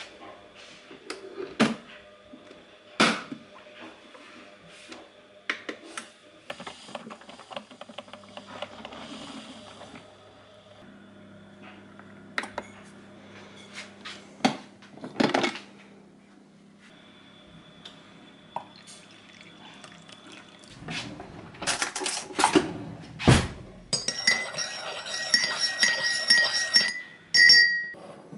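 Clinks and knocks of a drip coffee maker's glass carafe and porcelain being handled, over a low steady hum that starts about a third of the way in. Near the end, coffee is poured into a porcelain cup.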